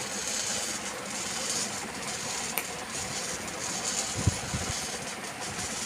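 Electric mixer grinder running steadily, grinding the roasted masala dry, without water.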